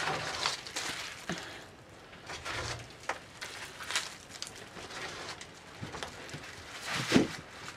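Dry, papery onion skins and tops rustling and crackling as onions are handled and threaded onto a string, in irregular crackles with a few louder ones.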